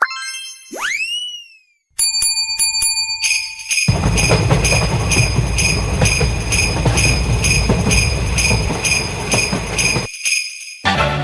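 Cartoon sound effects: a springy boing that swoops in pitch, then a steady beep with ticking. After that a railway-crossing warning bell dings about twice a second over a loud rushing rumble, and the rumble cuts off suddenly about ten seconds in.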